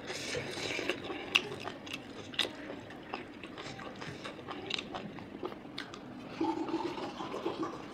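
Close-up eating sounds: wet mouth clicks and smacks of chewing, with fingers kneading rice against a plate. A short low hum from the eater comes near the end.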